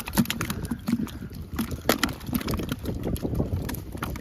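Freshly netted crucian carp flopping in a plastic bucket with a little water in it: irregular slaps and taps against the bucket, with splashing from the fish in the net. Wind rumbles on the microphone.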